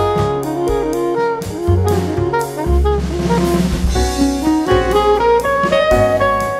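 Background instrumental jazz: a melody line over bass notes and a drum kit, with a cymbal wash about halfway through.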